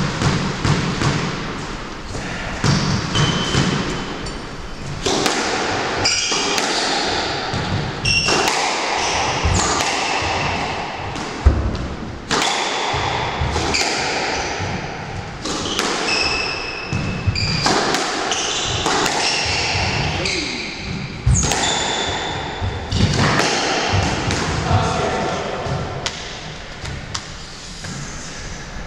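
Squash rally: the ball striking rackets and thudding off the court walls again and again, with short high squeaks from players' shoes on the wooden floor.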